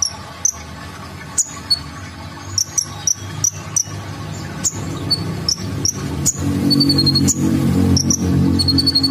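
Van Hasselt's sunbird (kolibri ninja) calling: a string of short, sharp, high chips, a few a second, with quick trilled runs of notes later on. A low hum grows louder under it from about halfway through.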